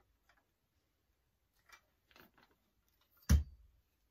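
Light stand being assembled by hand: a few faint clicks and rattles of its parts, then one loud knock a little over three seconds in.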